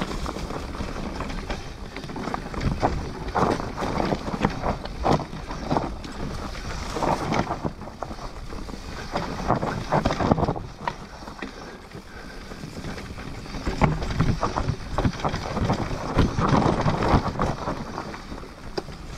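Mountain bike being ridden on a trail: wind rushes on the microphone while the bike rattles and knocks over the rough ground.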